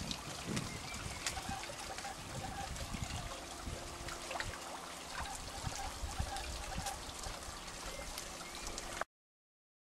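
Steady trickle of water in a garden pond, with small splashes and swirls from koi carp spawning among the reeds. The sound stops abruptly near the end.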